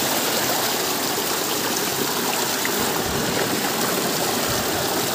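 Stream water flowing, a steady rush with no break.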